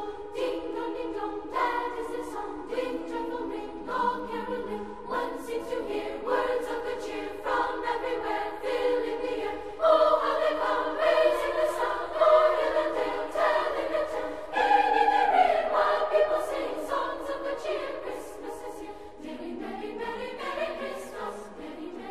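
A choir singing slow, held chords that change about once a second, swelling louder about ten seconds in.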